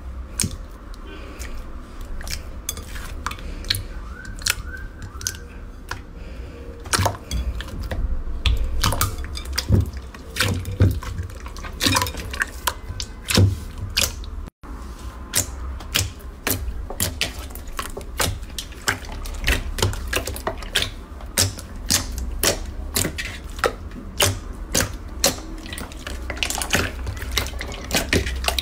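Slime being squished and pressed by hand, making a dense run of irregular wet clicks and pops, with a momentary dropout about halfway through.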